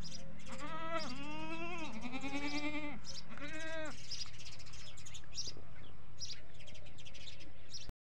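Desi goats bleating: several arching bleats in the first four seconds, one of them long and quavering, then the calls stop.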